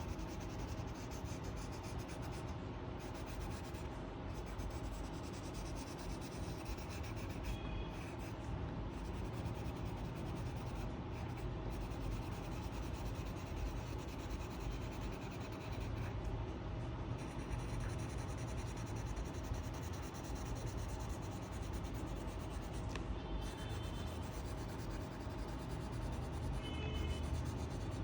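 A coloring pen or pencil scribbling steadily back and forth on paper, filling in an area with colour.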